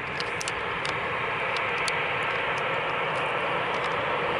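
Jet airliner's engines making a steady rush that slowly grows louder as the plane passes.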